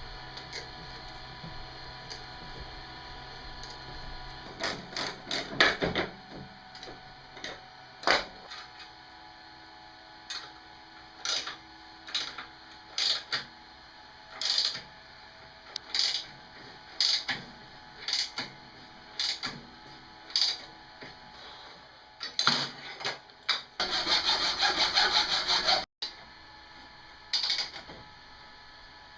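Workshop handling sounds: a string of separate knocks and clicks as parts are handled and fitted, with about two seconds of steady rough noise from a tool near the end.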